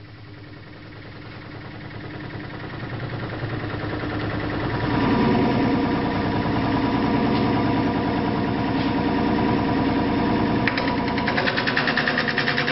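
Large wood lathe spinning a big log blank, its rumble and vibration building over the first five seconds as it comes up to speed and then holding steady with a fast beat. Near the end a turning tool bites into the spinning wood with a rapid rattling cut.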